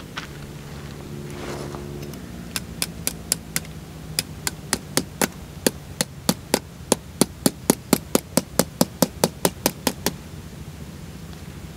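A small hammer driving a tent stake into the ground with sharp, clicking strikes. A few light taps come first, then a steady run of about three strikes a second that grows louder and stops shortly before the end.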